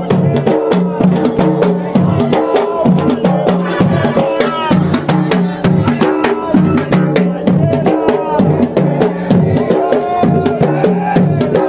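Large rope-tensioned barrel drums beaten by hand in a fast, steady rhythm, with voices over the drumming.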